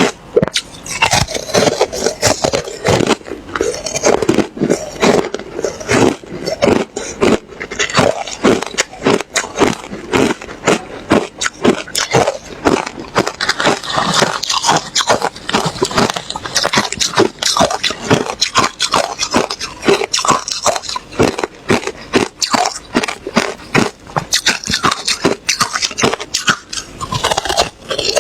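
Ice being chewed close to the microphone: continuous crunching and cracking as teeth break through hard ice, a rapid, irregular stream of sharp crunches.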